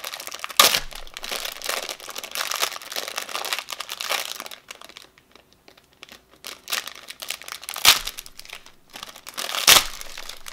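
Packaging crinkling and rustling as it is handled and unwrapped, broken by three sharp knocks, the loudest near the end, as things are set down or bumped. There is a brief lull just past the middle.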